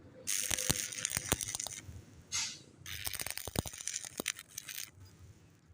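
Electric arc welding on a vertical weld: the arc crackling and spitting in two runs, each a second or two long, with a short pause between.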